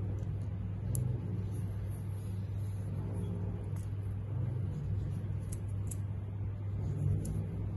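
A steady low hum that holds at an even level, with a few faint high clicks.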